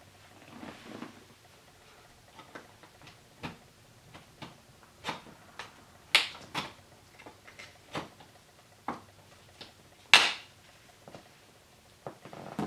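Scattered clicks and knocks of plastic trim and the metal frame of a BMW Z3 M Roadster sport seat being worked on by hand, with two louder clacks about six and ten seconds in.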